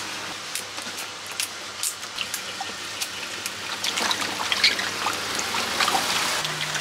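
Water splashing and sloshing in a metal basin as hands scrub and turn green fruit in it, with many small sharp splashes. It gets busier and louder in the second half.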